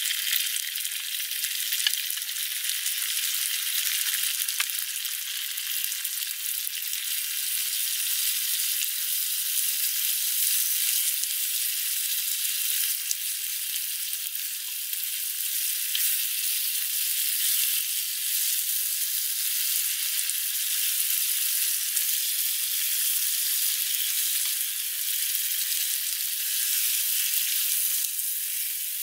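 Chopped tomatoes and chilies sizzling steadily in a small frying pan over a portable gas stove, stirred with a wooden spatula, with a few faint taps.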